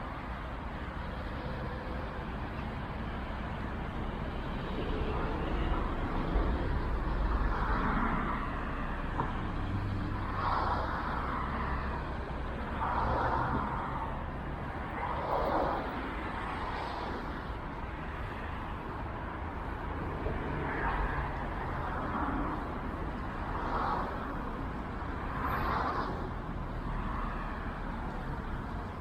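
Road traffic: a steady low rumble, with vehicles swelling up and passing every few seconds.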